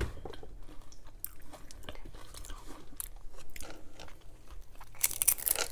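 Close-miked chewing and crunching of potato chips, with short crisp crackles throughout and a louder burst of crunching about five seconds in.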